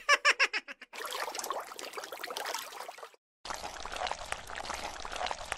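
Water trickling and sloshing in two stretches with a brief break between them, opening with a quick run of about half a dozen short high squeaks.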